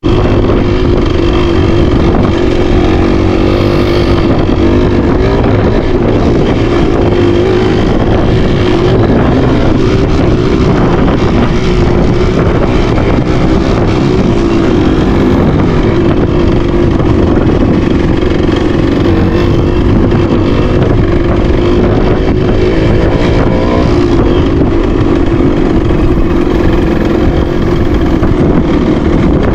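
Motorcycle engine running loud and close at a fairly steady pitch, without big revs or pauses.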